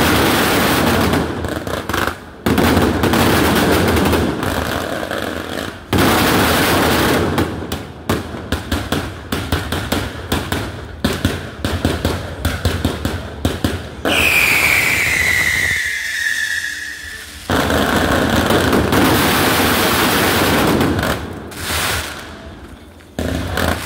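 Daytime fireworks and firecrackers going off: dense crackling and rapid strings of sharp bangs, broken just past the middle by a loud whistle that falls in pitch for about two seconds, then more crackling and scattered bangs.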